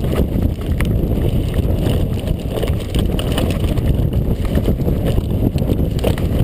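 Mountain bike riding over a dirt trail: steady wind rush on the microphone and tyre noise, with scattered small knocks and rattles from bumps.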